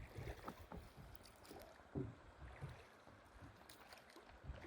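Faint water and hull sounds of a drift boat moving down the river: light splashes and small knocks, with one soft knock about two seconds in.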